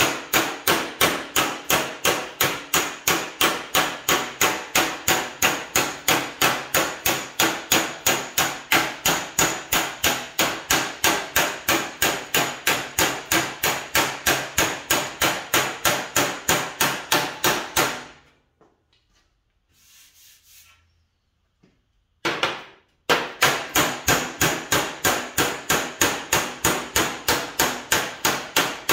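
Body hammer striking sheet metal backed by a dolly, planishing a weld seam on a truck door bottom: a steady run of ringing blows, about three a second. The ringing means the hammer is hitting on-dolly, crushing the weld between hammer and dolly and stretching it back up to level. The blows stop for about four seconds a little past halfway, then pick up again.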